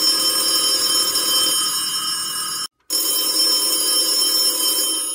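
Old rotary telephone bell ringing in a continuous ring. It breaks off for a moment about two and a half seconds in, starts again, and fades out near the end.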